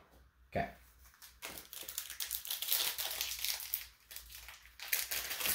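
Foil trading-card booster pack wrapper crinkling and crackling as it is handled, in two stretches with a short break about four seconds in. A soft thump comes about half a second in.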